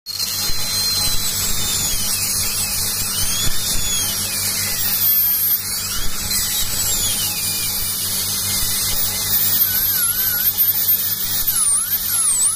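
High-speed dental handpiece whining steadily as its bur cuts through a porcelain-fused-to-metal crown to remove it, the whine wandering up and down in pitch over the hiss of its water spray.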